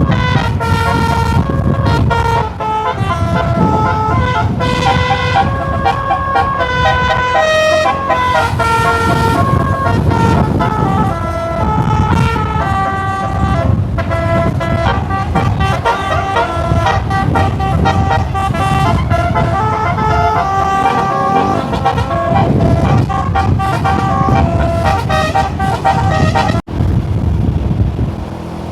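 Bus 'telolet' basuri horn playing a melody, a run of stepped multi-tone notes changing every fraction of a second, over the rumble of the bus's engine and road noise. The sound drops out for an instant near the end.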